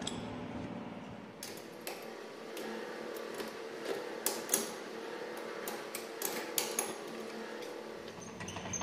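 Irregular metallic clinks and knocks as a steel pipe section is handled and seated in a lathe's four-jaw chuck, over a faint steady hum. The sharpest knocks come about halfway through and again a couple of seconds later.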